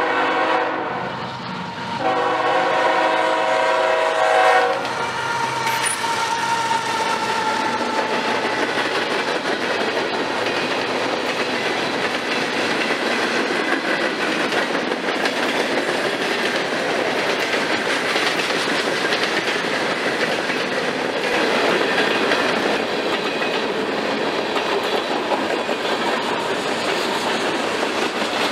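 Diesel freight locomotive horn sounding two blasts for a grade crossing, the second longer and louder. Then the train's freight cars roll steadily past with continuous wheel-on-rail noise and clickety-clack.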